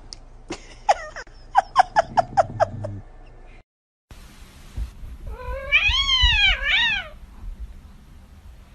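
Cat vocalising: a quick run of about eight short, falling mew-like chirps, then a brief silence, then a long drawn-out meow that rises and falls, followed by a shorter one.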